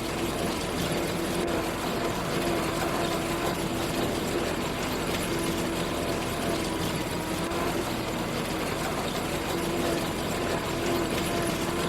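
Farm machinery engine running steadily at wheat harvest, a continuous mechanical hum with a held tone that stays level throughout.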